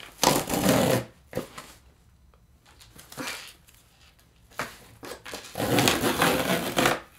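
A cardboard shipping box being handled, with scraping and rustling in three bursts: a short one at the start, a brief one about three seconds in, and a longer one near the end.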